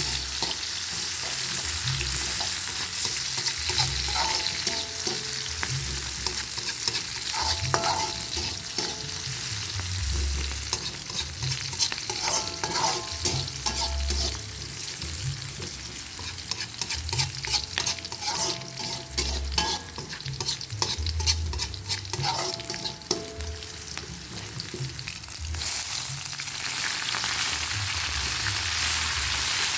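Stir-fry sizzling in hot oil while a spatula stirs and scrapes the pan, with bursts of sharp clicks and scrapes through the middle. Near the end the sizzle grows louder.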